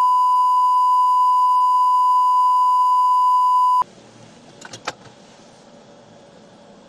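Steady high-pitched censor bleep tone, held for about four seconds and cutting off suddenly, then a few faint clicks.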